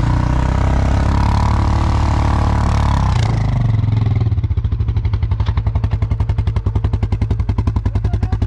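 ATV engine held at high revs under full throttle, then let off about three seconds in and dropping to an even, pulsing idle.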